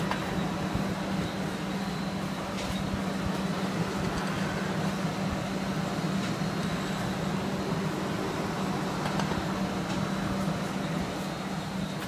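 Automatic sleeve-sealer and shrink-tunnel packing line running with a steady low hum, with a few faint clicks as boxes ride its roller conveyor.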